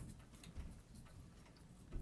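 Faint, fast ticking of a Seiko 6139 automatic chronograph's balance and escapement, running on a timing machine. The rate and beat error read close to correct.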